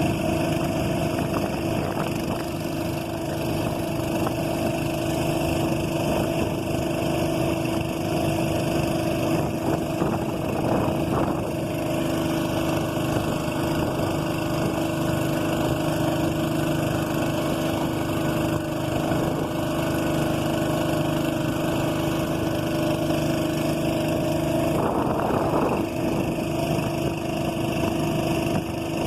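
Boat engine running steadily at a constant speed, with two brief swells in the sound, one about ten seconds in and one near the end.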